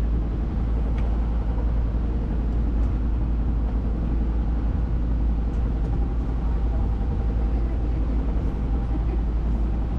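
Tour boat's engine running steadily under an even wash of noise, with a heavy low rumble.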